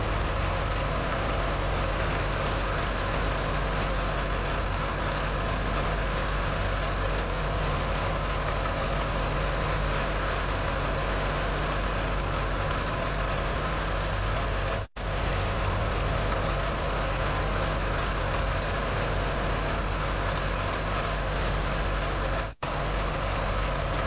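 Heavy truck engine running steadily: a constant engine drone under a broad hiss. It drops out for an instant twice, about 15 and 22 seconds in.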